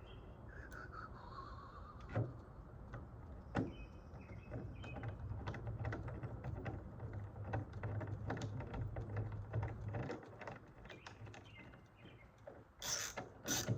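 Small clicks and taps of hand work on a sliding door lock as it is fitted, with a louder scraping clatter near the end. A few faint bird chirps come early on.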